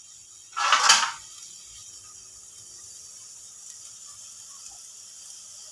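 Something poured or tipped into a cooking pot: one short clattering burst about half a second in, then a faint steady hiss.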